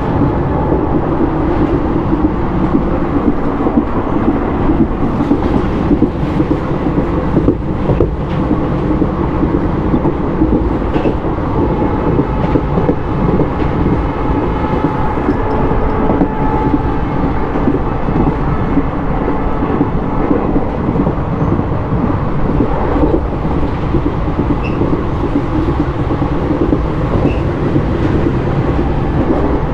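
Express passenger train running at speed, heard from on board: a steady loud rumble of wheels on the rails with faint, scattered clicks.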